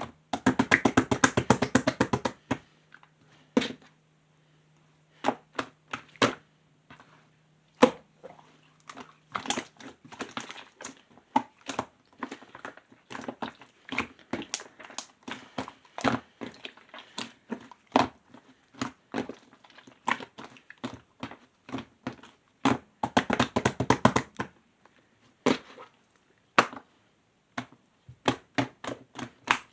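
Clear slime being squeezed, folded and pressed by hand, making irregular wet clicks and pops. There are two fast runs of popping, about half a second in and again about 23 seconds in. A faint low hum runs through the first ten seconds.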